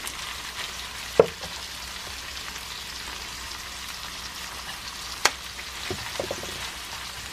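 Olive oil and vegetables sizzling steadily in a frying pan over low heat, with a few sharp clicks from utensils on the pan as tofu noodles are seasoned and tossed, the loudest about a second in.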